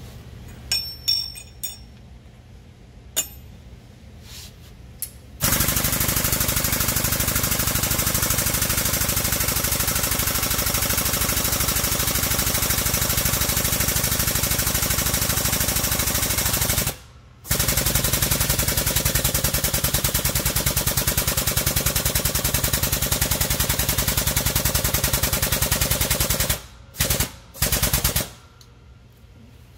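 Air-over-hydraulic bottle jack on a shop press pumping with a loud, rapid, even rattle as it presses a bearing onto a rear axle shaft. It starts after a few light metal clinks, runs about eleven seconds, stops for a moment, runs about nine seconds more, then gives two short bursts near the end.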